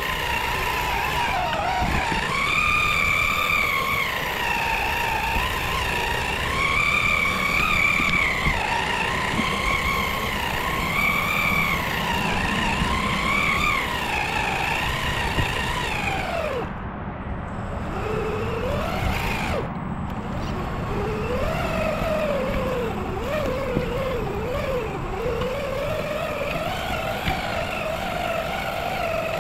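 RC4WD Bully 2 rock crawler's electric motor and gear train whining as it is driven over the trail, the pitch swelling and dipping every few seconds with the throttle. About two-thirds through it drops lower and eases off twice, then climbs slowly again.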